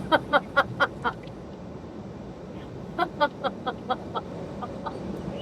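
A person laughing in two runs of short, evenly paced 'ha' sounds, about five a second, over the steady hum of a car driving.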